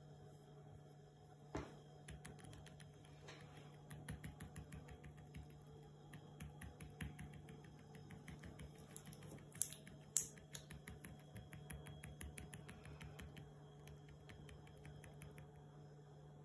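Latex-gloved fingers typing on a laptop keyboard: quick, irregular key clicks, with two sharper, louder clicks a little past the middle.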